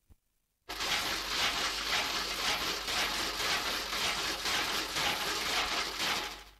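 Dense rushing hiss from an animated film's soundtrack: it starts suddenly about half a second in, after a few faint clicks, holds steady, and fades away just before the end.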